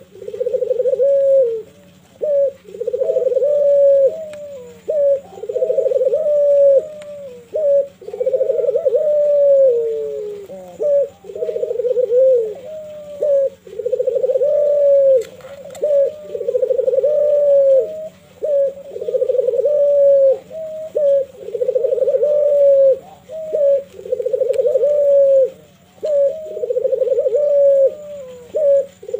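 Caged Barbary dove (ringneck dove, 'puter') cooing over and over, one coo phrase about every two seconds, as it bows. This is its full display call, the 'manggung' song.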